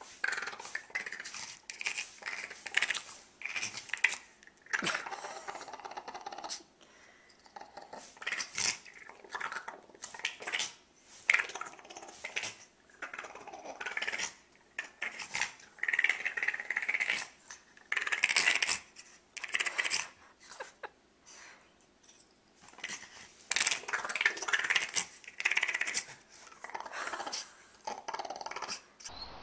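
Boston Terrier vocalizing in short, irregular, breathy bursts of grunts and whines, with brief pauses between them.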